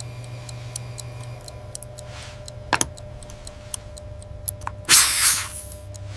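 Mechanical watch movement ticking in quick, even ticks over a low steady hum, with one louder click a little before three seconds in and a short, loud burst of hiss about five seconds in.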